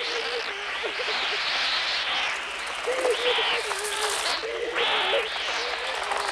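A flock of crows attacking, a dense rush of flapping wings with wavering shrieking cries, with children screaming over it in bursts. The crow sounds are electronically synthesised film bird effects.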